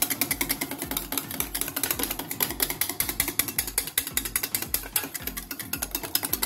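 Wire whisk beating yogurt in a stainless steel bowl: a fast, even clicking as the wires strike the side of the bowl, several times a second.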